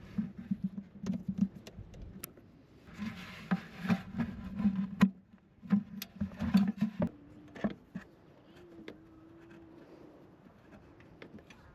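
Irregular small clicks and knocks of hand tools and small parts being handled during carburetor work, with a short hiss about three seconds in.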